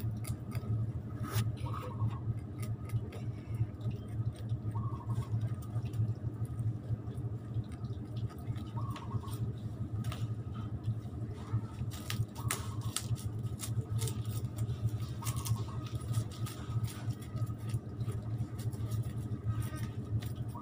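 Kitchen knife scraping scales off whole fish on a woven bamboo tray: irregular rasping scrapes and clicks, over a steady low hum.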